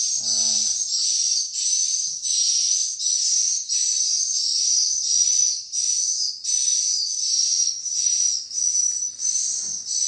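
Swiftlet calls filling the bird house: a steady chorus of high, thin chirps pulsing about twice a second.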